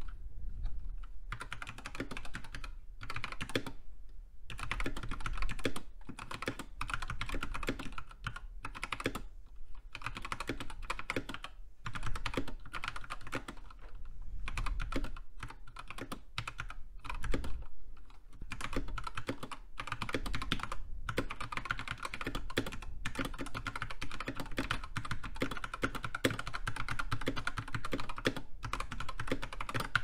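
Typing on a Tecware Phantom tenkeyless mechanical keyboard fitted with Gateron Yellow linear switches and thick Dolch keycaps: a steady run of key clacks that starts about a second in, broken by a few brief pauses.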